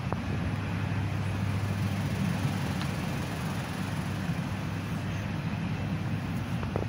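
Steady room noise of a large indoor showroom with a constant low hum, and a couple of faint clicks near the end.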